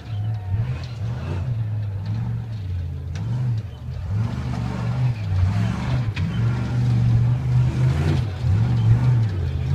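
Off-road race car engine revving up and down again and again as the car climbs a rock section, growing louder toward the end as it approaches.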